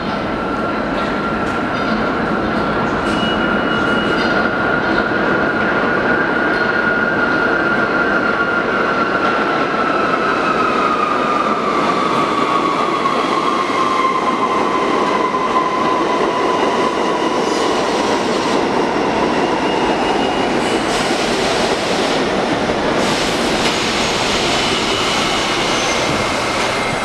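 New York City subway train of R68A cars running into a station and slowing to a stop, with a loud, steady rumble of wheels on rail. A high whine sinks slowly in pitch as the train slows, and a hiss comes in near the end as it stops.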